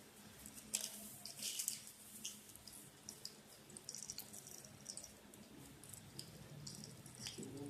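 Oil heating in a cooking pan, giving faint, irregular crackles and small pops.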